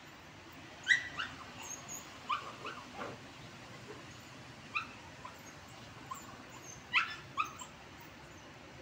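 Small fluffy spitz-type dog giving short, high yips and barks in small groups, the loudest about a second in and again about seven seconds in.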